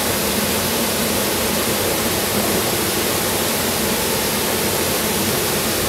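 Water pouring over a concrete spillway and churning in the basin below: a steady, unbroken rush.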